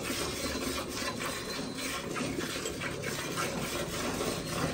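Hand milking of a Gir cross cow: jets of milk squirting into a bucket, a rhythmic hissing stroke about two or three times a second as the teats are pulled.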